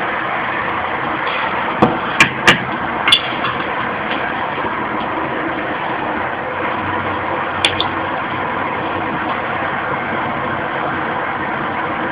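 Homemade coil-pipe burner stove running with a steady rushing noise. Four sharp knocks from the frying pan being handled come about two to three seconds in, and another near eight seconds.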